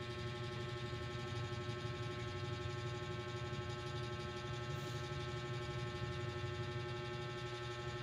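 A steady, unchanging hum made of several fixed tones, with a low drone underneath.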